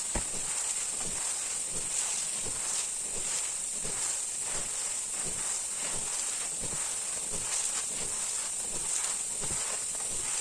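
Irregular rustling and crackling, over a steady high-pitched hiss that holds throughout.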